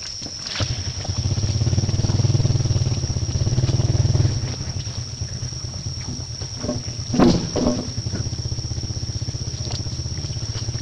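An engine running with a steady low hum and a fast, even pulse, louder from about one to four seconds in. A constant high-pitched tone runs over it, and a short sharp sound comes about seven seconds in.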